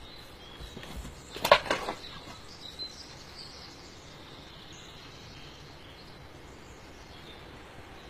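A newborn foal going down onto straw bedding: a short cluster of sharp knocks and rustles about a second and a half in. Behind it, a steady hiss with faint bird chirps.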